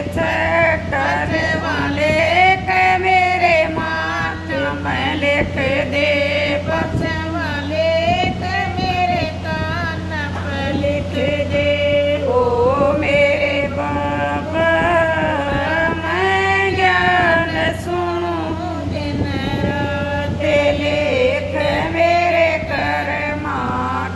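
A woman singing a Hindi devotional bhajan, one long melodic line after another with a steady low hum underneath.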